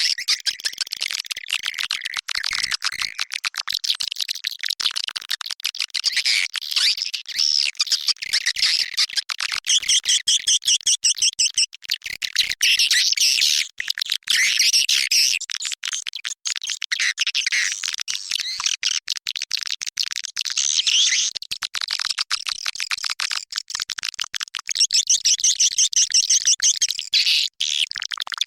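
Recorded swiftlet lure call: a dense, continuous twittering of many swiftlets in rapid high chirps, with fast regular trilling passages now and then. It is played to attract swiftlets into a nesting house.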